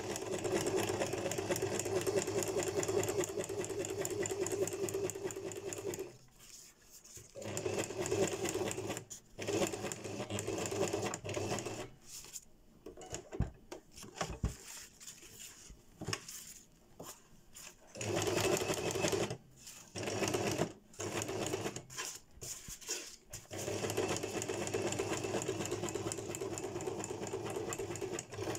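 Electric household sewing machine stitching through fabric: it runs steadily for several seconds, stops, then starts and stops in many short bursts of stitching through the middle, and runs steadily again near the end.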